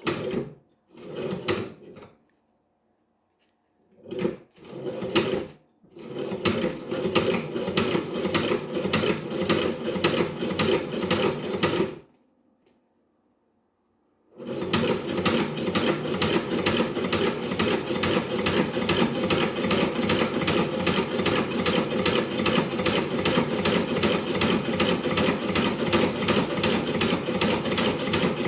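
Leather shoe-patcher sewing machine stitching: a few short starts, then a steady rapid clatter of stitches for about six seconds, a pause of about two seconds, and continuous stitching again.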